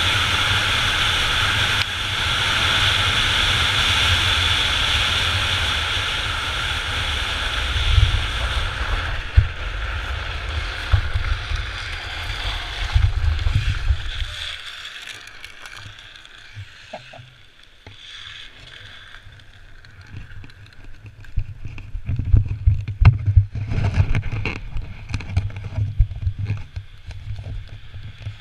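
Drift trike running fast downhill on asphalt: wind buffeting the microphone and a steady hiss of the wheels rolling on the road. About halfway through it slows and the noise drops, with scattered crunches and clicks as it rolls over gravel, and gusts of wind on the microphone near the end.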